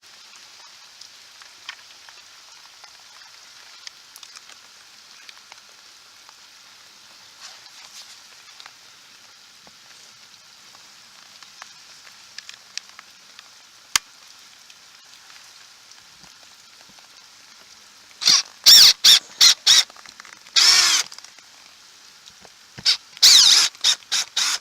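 Steady light patter of rain, then a cordless drill running in a series of short spurts on the screws of an RV city water inlet, each spurt whirring up and winding down.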